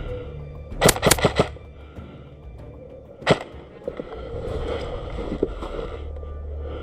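Airsoft gun shots: a quick string of four sharp cracks about a second in, then a single crack a little after three seconds, over background music.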